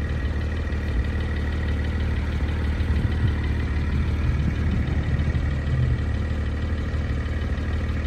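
2021 Porsche 718 Spyder's 4.0-litre flat-six idling steadily.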